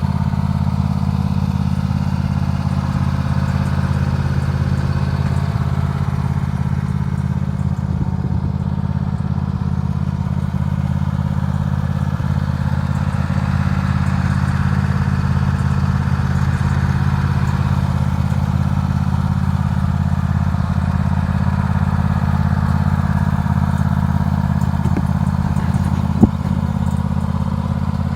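Simplicity Regent 22 hp riding lawn mower engine running at a steady, unchanging speed, with one sharp click near the end.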